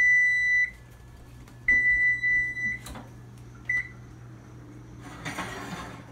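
Whirlpool electric range's timer signalling the end of its countdown: a high steady beep lasting about a second, a second beep about a second later, then a short chirp. A brief burst of noise follows near the end, over a low steady hum.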